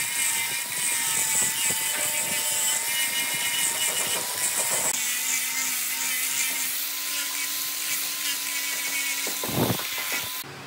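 Electric angle grinder with a sanding disc on a rubber backing pad, sanding wood: a steady high motor whine over the hiss of the abrasive on the wood. The sound changes about halfway through and stops suddenly near the end.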